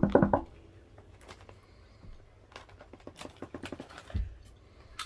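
Foil-lined chip bag crinkling in scattered small crackles as a hand rummages in it and tips it, with a soft low thump about four seconds in.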